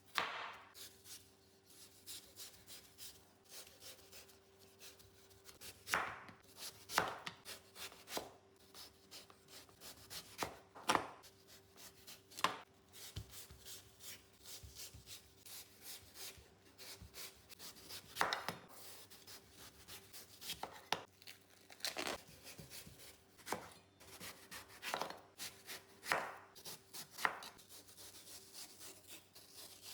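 A knife cutting fruit on a cutting board: irregular sharp cuts and knocks every second or two, with softer scraping between them. A faint steady hum runs underneath.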